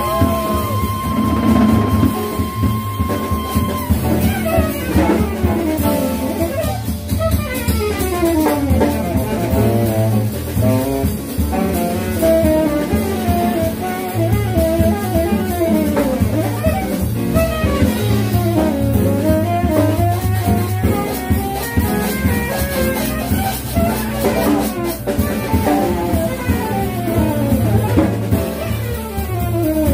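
Small jazz combo playing live: a saxophone holds a long note for the first few seconds, then plays fast running melodic lines over double bass, piano and drum kit with cymbals.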